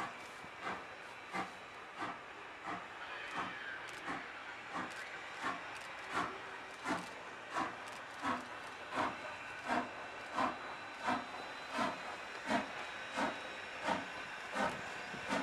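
Exhaust of two double-headed steam locomotives, Strasburg Rail Road 90 and 475, working a freight train at low speed: an even beat of chuffs, about three every two seconds, over a steady hiss of steam.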